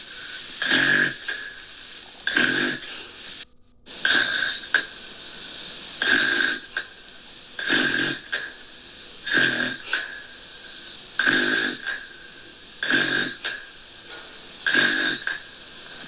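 Gentle snoring: about nine evenly spaced rasping snores, one every second and a half to two seconds, over a steady faint hiss. There is a brief cut-out a few seconds in.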